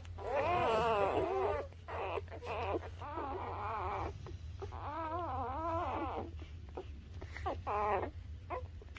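Newborn puppies whining and squealing: a run of high, wavering cries in several bouts with short gaps, over a low steady hum.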